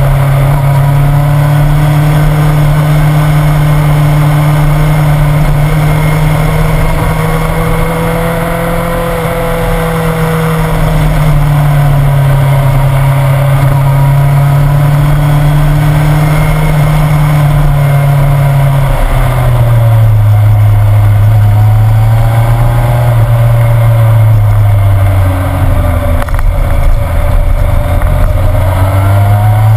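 Motorcycle engine running at steady road speed over a rush of wind and tyre noise. The engine note drops about two-thirds of the way through as the bike slows for a hairpin, sinks lower still, then climbs again near the end as it pulls out.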